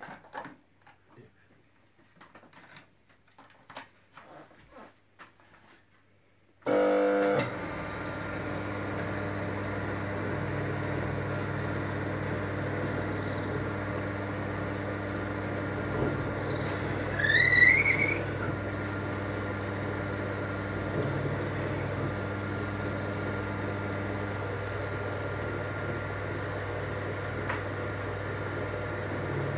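Bench-mounted electric spindle motor with a drill chuck and cutting bit for drilling a meerschaum pipe. It switches on about a third of the way in after a few light handling clicks, then runs with a steady hum, with a brief high squeal a little past halfway.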